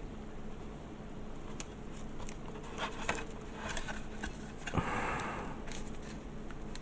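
Light handling sounds of masking tape on a plastic model part: scattered small clicks and rustles, with a short rasping rustle about five seconds in.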